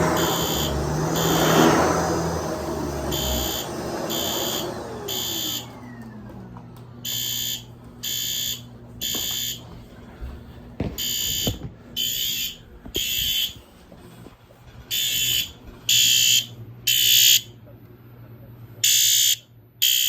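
A SpectrAlert Advanced P2R electronic fire alarm horn sounds in the code-3 temporal pattern: three half-second blasts, a pause, then again, about every four seconds. A Shark DuoClean upright vacuum runs loudly for the first few seconds, then is switched off, its motor whine falling as it spins down. Two faint knocks come about halfway through.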